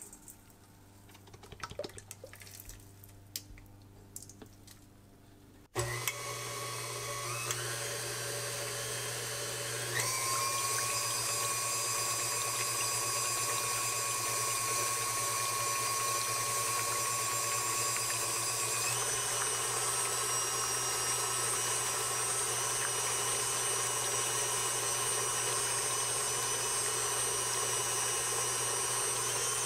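Cream pouring faintly into a stainless steel mixing bowl. About six seconds in, a KitchenAid Classic Plus tilt-head stand mixer starts, whipping cream with its wire whip. Its motor whine steps up in pitch three times as the speed lever is moved up from low.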